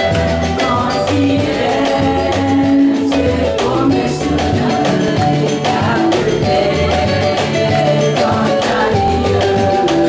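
Two women singing a lively gospel song into microphones over bass and percussion accompaniment with a steady, dance-like beat.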